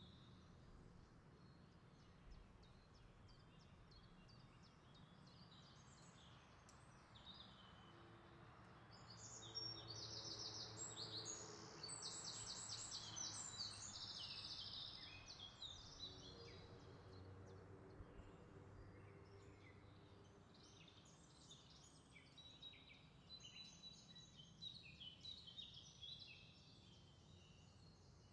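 Faint birdsong: many short high chirps and quick trills, busiest about ten to fifteen seconds in and again near the end, over a faint steady background hum.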